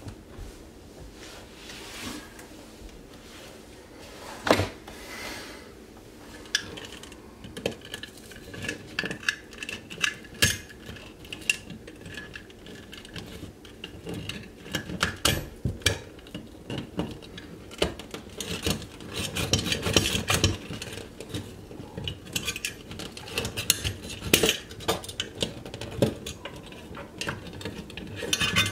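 Irregular metallic clinks, knocks and scraping as hand tools work an old steel electrical box loose from the wall. There is a sharp knock about four seconds in, and the clatter grows denser from about eight seconds on.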